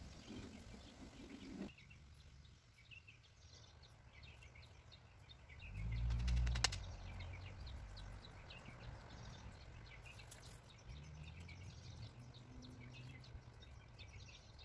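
Faint birds chirping in the background, many short high calls, with a louder low rumble ending in a sharp click about six seconds in.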